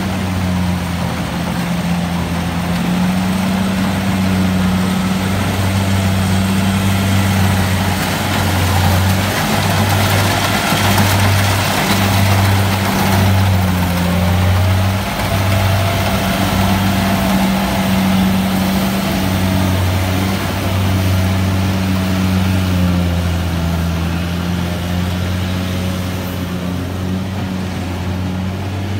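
Kubota tracked combine harvester running while it cuts rice: a steady low engine hum with a broad noise over it. It grows louder about ten to fourteen seconds in as the machine passes close.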